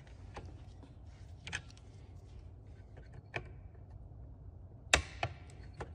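Faint clicks and taps of small plastic and metal parts being handled as the blue plastic lever and its nut are fitted on a Makita DHS680 cordless circular saw, with the sharpest click about five seconds in.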